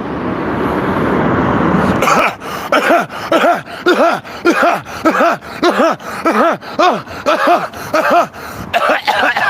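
A man in a coughing fit that he cannot stop: a rapid run of short, voiced coughs, about two a second, starting about two seconds in after a swelling rush of noise.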